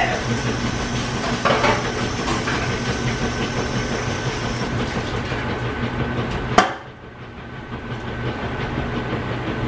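Pancake batter sizzling steadily in vegetable oil in a frying pan on an electric coil burner. About two-thirds of the way through there is a sharp click, after which the sizzle drops away and slowly builds back up.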